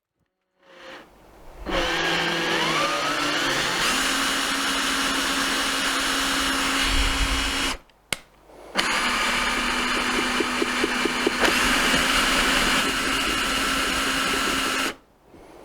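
A small electric motor runs up to speed with a rising whine, holds a steady pitch, stops briefly about eight seconds in, then runs steadily again until it cuts off near the end.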